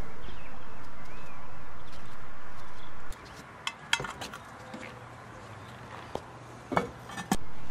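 A steady hiss for about three seconds, then a quieter background with a few sharp metal clinks. Near the end comes a cast-iron Dutch oven lid, loaded with hot charcoal briquettes, clanking twice as it is set down on the pot.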